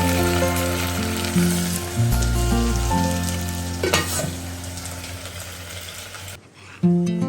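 Food sizzling as it fries in a pan, with stirring, under background music.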